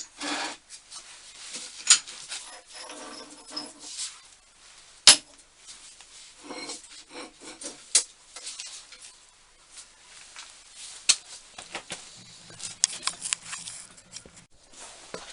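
Heavy metal milling accessories being handled and set down on a shelf: irregular knocks and clinks, the loudest about five seconds in, with scraping and rubbing between them.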